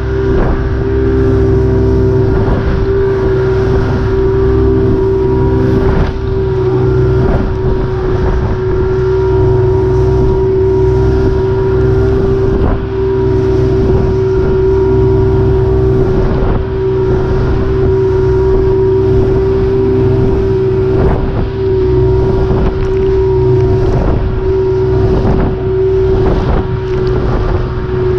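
Motorboat engine running steadily under way with a constant drone, while the hull slaps through choppy waves in irregular thuds and splashes.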